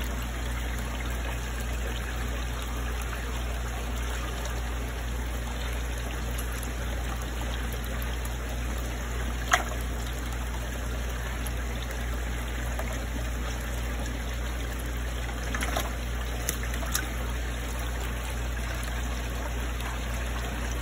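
Steady trickle of water in a fish tank over a constant low hum. There is one sharp click about halfway through and a few fainter clicks a little later.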